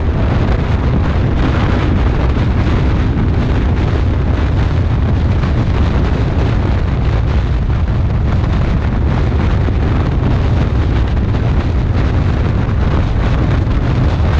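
Wind buffeting the microphone of a handlebar-mounted camera on a moving motorcycle, over the low rumble of the bike's engine. A loud, steady rushing noise, heaviest in the deep bass.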